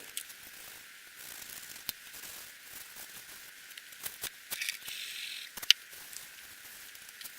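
Scrubbing and wiping sounds while packing grease and protective plastic are cleaned off a bench mill, with scattered small clicks and knocks of parts and tools. The sharpest click comes a little before six seconds in.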